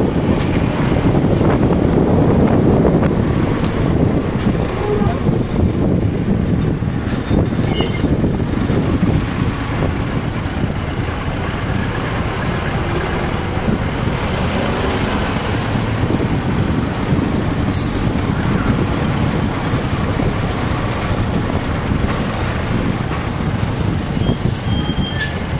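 Steady rumble of wind on the microphone mixed with street traffic, heard while riding along a city street.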